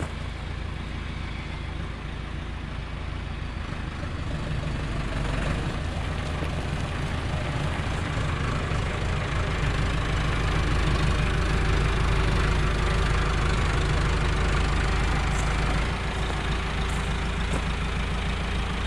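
Landini 8880 tractor's Perkins diesel engine running steadily, growing louder from about four seconds in and easing off at about sixteen seconds.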